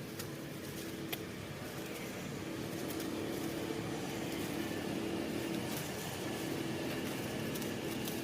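A motor vehicle engine running steadily, a low hum that grows louder about two and a half seconds in.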